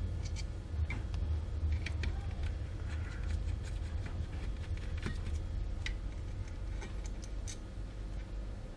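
Small precision screwdriver turning screws out of the plastic housing of a Pro'sKit battery-powered soldering iron: scattered light clicks and ticks, over a steady low hum.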